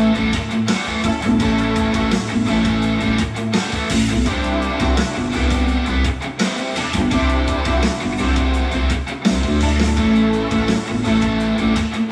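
Guitar-driven music with a strong bass line and a steady beat.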